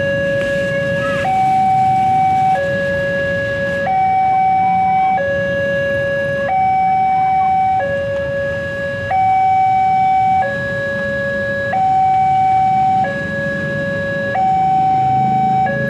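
Railway level-crossing alarm sounding its two-tone warning, a lower and a higher tone alternating about every second and a quarter, while the barrier is down for an approaching train.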